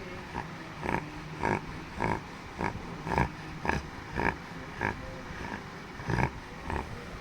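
Labrador retriever snoring in its sleep: short, rhythmic snorting snores about twice a second.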